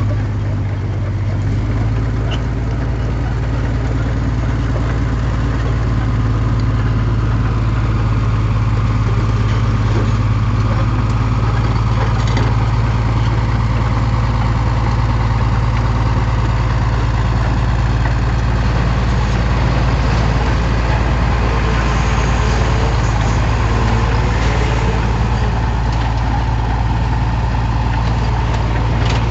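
Heavy earthmoving machine's diesel engine running steadily at a low, even pitch.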